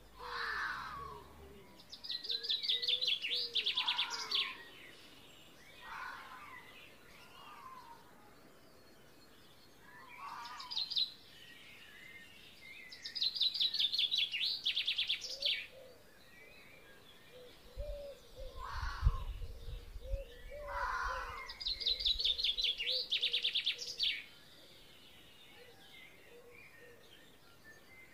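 Birds singing: a fast trill of rapidly repeated high notes comes three times, about ten seconds apart, with shorter, lower calls in between. A brief low rumble comes a little past the middle.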